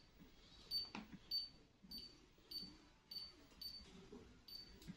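Massage chair's touchscreen controller beeping as its screen is pressed: about eight short, identical high beeps, roughly one every half second to second, with a few soft thumps between them.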